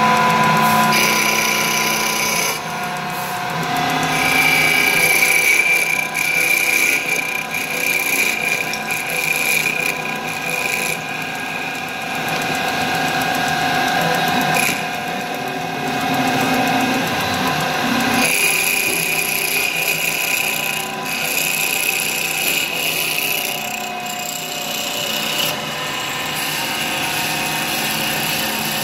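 STYLECNC STL3080 mini CNC wood lathe turning a wooden spindle: a steady motor whine with the cutter rasping against the spinning wood. The whine changes pitch a few times as the cutting passes change.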